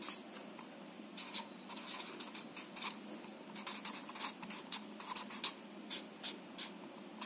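Felt-tip marker writing on paper: a run of short, quick scratching strokes as letters are drawn, ending with underlining strokes.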